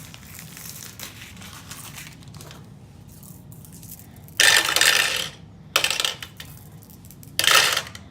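Small metal balls of a Crossfire dexterity game being shot across its plastic board, clattering and rattling in two loud bursts about halfway through and near the end, with a brief click between them.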